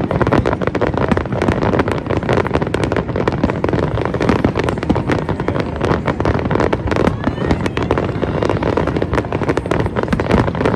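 Fireworks going off in a dense, unbroken barrage of rapid bangs and crackles, many each second.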